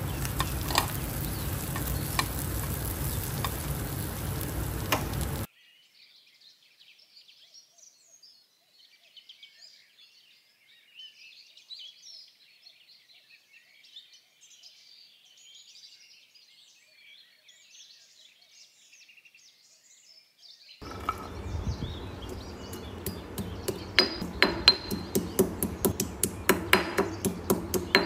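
Kitchen cooking sounds. First a steady hiss like food frying, with a few clicks, which cuts off after about five seconds. Then a long faint stretch with scattered high chirps, and from about two-thirds of the way through, repeated sharp knocks coming several times a second.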